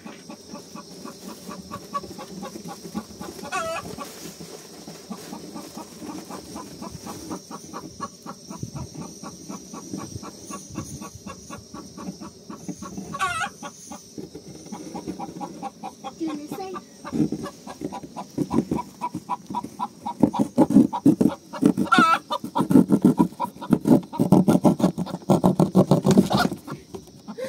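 Chickens clucking in a rapid, busy chatter, with a few short high calls. The clucking grows louder and denser over the last several seconds, then drops off just before the end.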